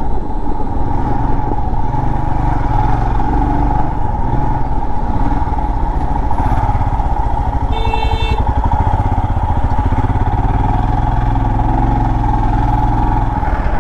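Royal Enfield Himalayan's 411 cc single-cylinder engine running steadily at low road speed, heard from the rider's seat. A short horn beep sounds about eight seconds in.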